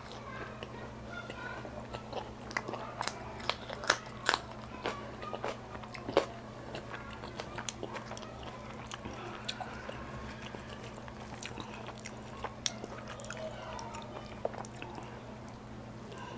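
Close-miked eating: chewing and biting of fried puri and paratha with curry, full of wet clicks and crisp crackles, loudest between about three and six seconds in. A steady low hum runs underneath.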